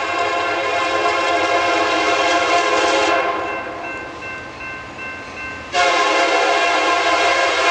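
Diesel locomotive's multi-chime air horn sounding for a grade crossing: a long blast that stops about three seconds in, then a second long blast that starts sharply near the end.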